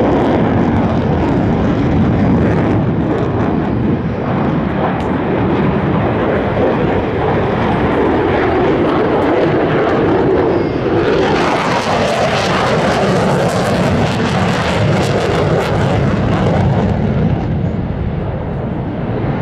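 F-16 fighter jet's General Electric F110 turbofan, a loud continuous jet noise. It swells harsher and brighter about halfway through, then eases near the end.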